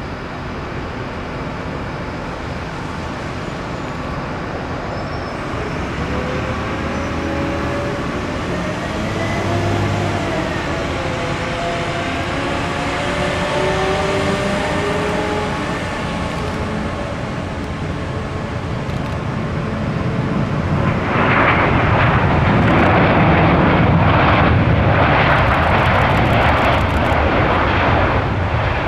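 Airbus A340-600 landing, its four Rolls-Royce Trent 500 turbofans running with a steady rumble and whining tones that slide in pitch as it comes in and touches down. About two-thirds of the way in the sound swells into a louder, rougher rush as the airliner rolls out and slows on the runway.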